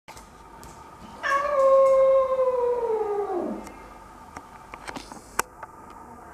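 Domestic cat gives one long yowl about a second in, holding its pitch and then sliding down as it ends. A few light clicks follow.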